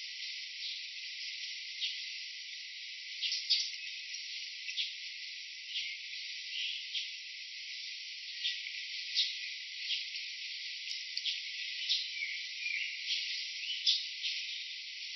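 Steady insect chorus, with irregular short clicks scattered through it.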